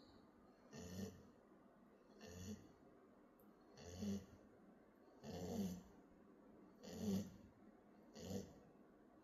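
Sleeping puppy snoring faintly: six snoring breaths, evenly spaced about every one and a half seconds.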